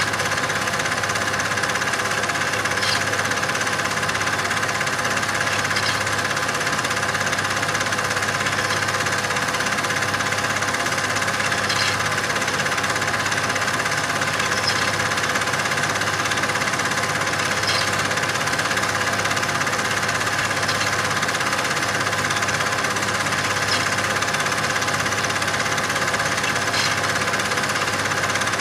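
Cine film projector running: a steady motor hum with an even mechanical chatter and a faint tick about every three seconds.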